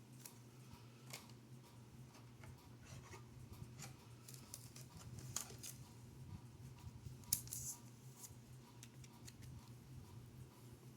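Faint clicks and light scrapes of trading cards being handled and flipped, with a sharper rustle about seven seconds in, over a low steady hum.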